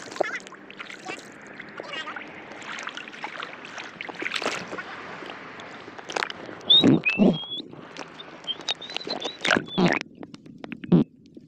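Shallow sea water sloshing and splashing around a camera held at the surface and dipped under, with gurgles and sudden knocks, the loudest about seven seconds in.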